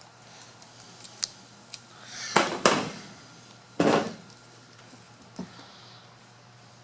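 Scissors cutting through thick VHB foam tape, which is tough to cut: a few light clicks, then two louder crunching snips about a second and a half apart, and a smaller click later.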